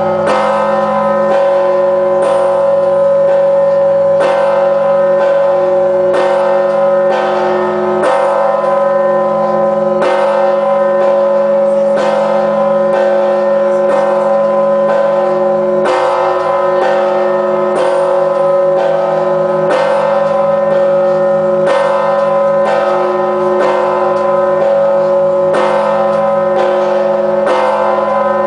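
The 7,150 kg All-Saints bell of the Kyiv-Pechersk Lavra tolling steadily at about one stroke a second. Each stroke rings on into the next, so the bell's tones hum without a break between strikes.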